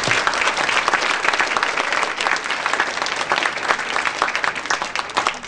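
Audience applauding: many hands clapping in a dense, even patter that dies down near the end.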